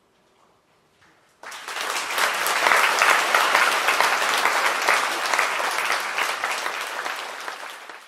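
Audience applause breaking out suddenly after about a second and a half of near silence, then carrying on loud and easing off near the end.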